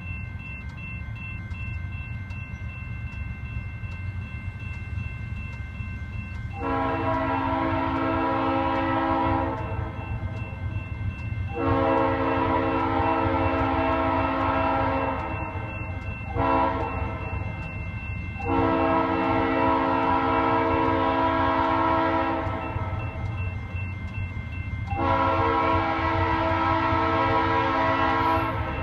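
Leslie RS-3L air horn on a Norfolk Southern C40-8W freight locomotive sounding the grade-crossing signal: two long blasts, a short one and a long one, then another long blast near the end. A steady low rumble runs under it.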